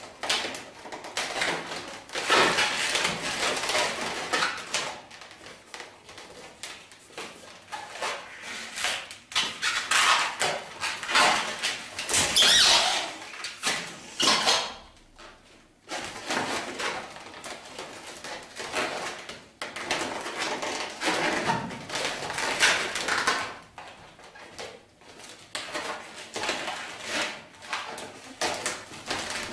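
Latex 260 modelling balloons squeaking and rubbing as they are twisted and handled, in uneven spells with a short lull about halfway through.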